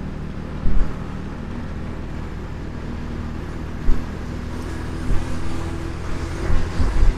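Motorcycle engine running steadily at cruising speed, with wind rumble on the microphone and a couple of brief low thumps.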